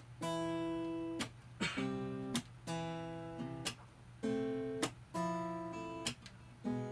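Acoustic guitar strumming held chords in an instrumental break. A sharp percussive hit on the strings lands about every second and a quarter, and the chords restart after each one.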